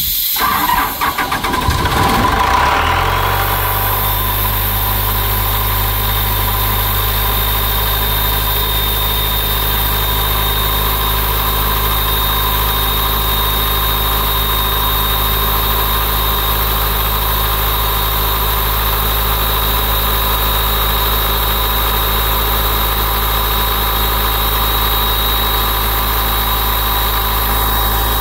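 Ingersoll Rand R185 portable air compressor's four-cylinder diesel engine starting: it cranks briefly, catches about two seconds in and rises to speed, then runs steadily at idle with a thin, steady high whine over it.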